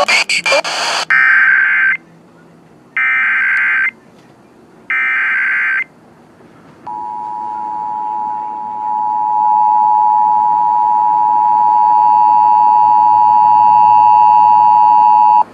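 Emergency Alert System tones: three one-second bursts of the rasping SAME digital header, a second apart, then the EAS two-tone attention signal (853 and 960 Hz) held steady for about eight and a half seconds and growing somewhat louder. This is the data header and alert tone that open a fire warning broadcast.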